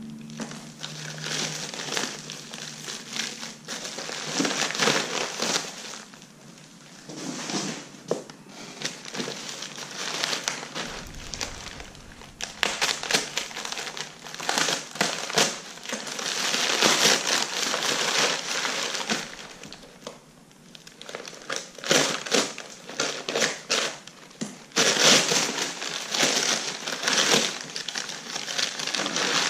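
Plastic wrap and packing paper crinkling and crumpling as a boxed part is unwrapped by hand, in uneven rustling bursts with many small crackles.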